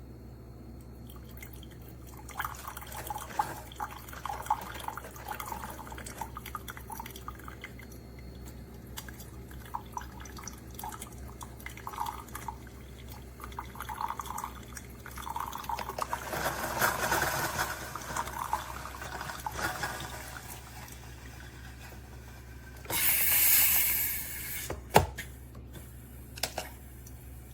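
Tastyle single-serve coffee maker brewing: coffee trickles and gurgles into the cup over a low machine hum, growing louder for a few seconds midway. Near the end comes a hiss of about a second, then a single sharp click.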